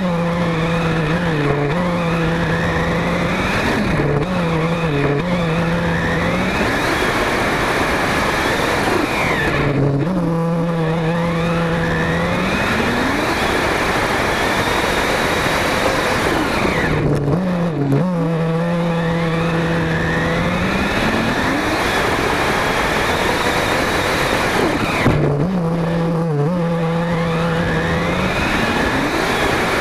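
Onboard sound of a Kyosho Inferno MP5 radio-controlled buggy driving on grass and dirt. Its drivetrain holds a steady low tone when it is slow and gives a rising whine as it accelerates, several times over, above a constant rough rumble from the ground.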